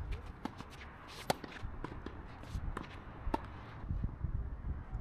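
Tennis ball struck by rackets during a doubles rally: a few sharp pops, the loudest just over a second in, with faint footsteps on the court between them.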